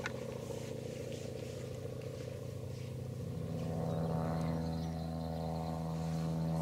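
An engine running steadily at an even pitch, getting a little louder about halfway through, with a light click at the start.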